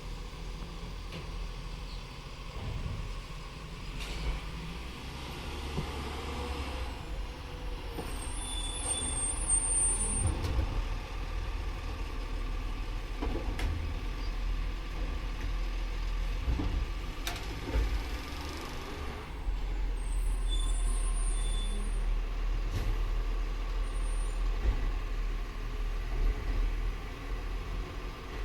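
Automated side-loading garbage truck running, with its robotic arm working the bins: a steady low engine rumble, scattered knocks and clanks, and two short high hisses about 8 and 20 seconds in.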